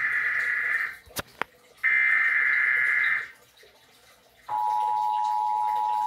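Emergency Alert System header tones heard from a television: the end of one buzzy digital data burst, two short clicks, then a second burst of about a second and a half. After a brief gap, the steady two-tone EAS attention signal starts about four and a half seconds in.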